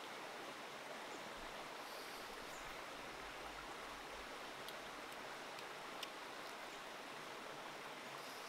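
Faint steady rushing of flowing water, with a few faint clicks around the middle.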